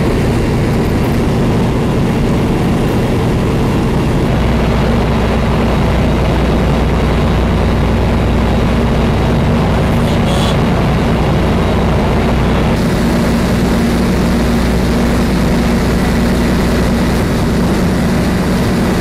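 Naval ship's engines running steadily at slow astern during a harbour mooring manoeuvre, heard on deck as a loud, even low drone.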